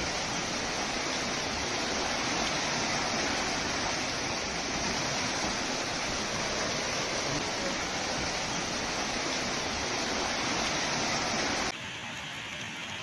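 Steady rushing of floodwater pouring across a road, an even noise without a break. Near the end it drops to a quieter, lighter wash.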